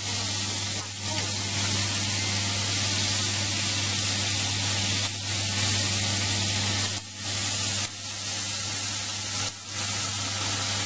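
Sliced onions sizzling hard in hot oil in a frying pan while fish sauce and sugar cook down into a sauce: a steady, loud hiss that dips briefly a few times.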